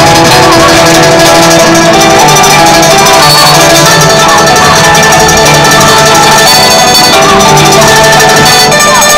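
Instrumental music playing steadily, with held notes and a few sliding pitches.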